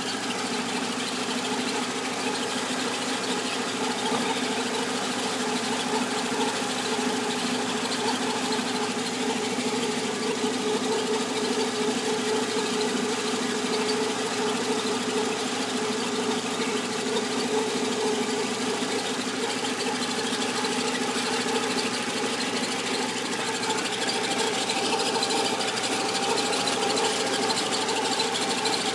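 Peugeot 206 engine running steadily with a strange noise, a continuous hum of several steady tones, that was traced to the clutch and cured by replacing the clutch kit.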